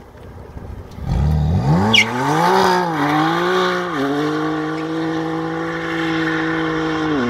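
BMW M4's twin-turbo straight-six revving hard as the car launches with its rear tyres spinning and smoking. After about a second the engine note climbs sharply and dips twice, then holds at steady high revs for about three seconds while the wheels keep spinning.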